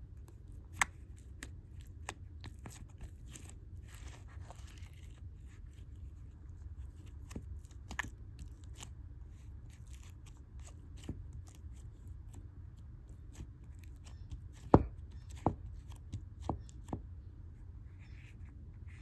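Slime squished and pressed by hand, giving scattered sharp pops and clicks as air pockets burst, with a soft squelch around four seconds in; the loudest pop comes about fifteen seconds in, followed by a few smaller ones.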